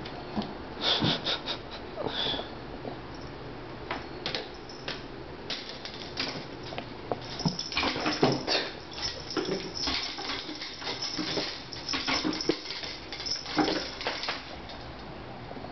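Kittens leaping at a hanging toy: paws and claws knocking and scrabbling against a painted wall and louvered closet door, and landing on a hardwood floor. Irregular knocks and scratches, busiest in the second half.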